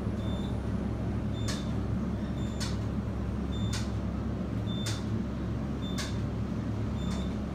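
Otis high-speed elevator car travelling, with a steady low hum and rumble of the ride and a short click with a brief high beep about once a second.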